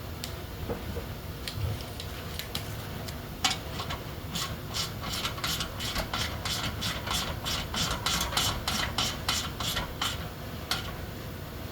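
Hand ratchet turning bolts in: a few scattered clicks, then from about three and a half seconds in until near the end an even run of short rasping ratchet strokes, about three a second.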